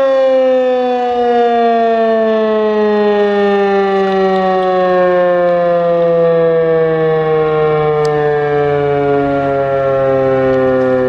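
Sentry 10V outdoor warning siren sounding for a fire call, one loud steady tone with many overtones whose pitch falls slowly and evenly.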